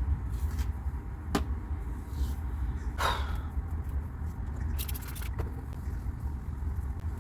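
Steady low rumble with a few light clicks and scrapes from a comb and hands working through matted hair: one click about a second and a half in, another about three seconds in, and a quick cluster of clicks near the five-second mark.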